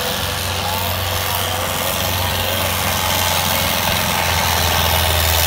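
Modified Preet 6049 tractor's diesel engine running hard under heavy load as it drags a disc harrow, a steady deep drone that grows a little louder over the few seconds.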